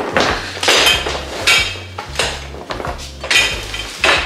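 Rustling and clinking as a grow tent's fabric cover is dragged over its metal pole frame, in a series of short bursts, about six in four seconds.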